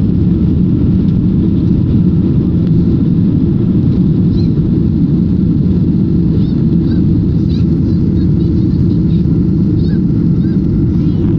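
Boeing 737-800 jet engines at takeoff thrust, heard inside the passenger cabin as a loud, steady low rumble while the airliner speeds down the runway and lifts off.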